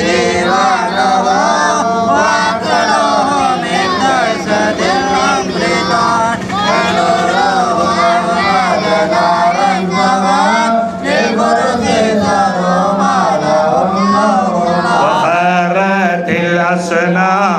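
Men's voices chanting Arabic devotional mawlid poetry together through a PA microphone, in a continuous, wavering melodic line.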